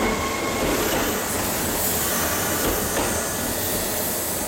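Kintetsu limited express electric train pulling out and running past close by: a steady rush of wheels on rail and running gear, easing off slightly as the last cars go by.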